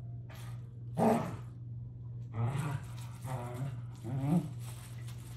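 Dog growling in play, in about five short grumbling bouts, the loudest about a second in.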